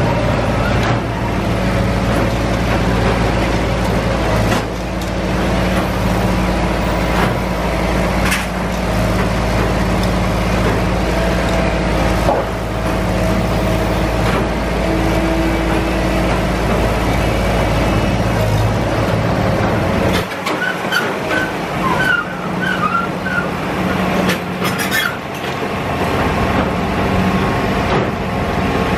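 Track-laying machine working: heavy diesel engines and machinery running steadily with a deep rumble and scattered knocks. A few short high squeaks come about three-quarters through, while the low rumble briefly drops away.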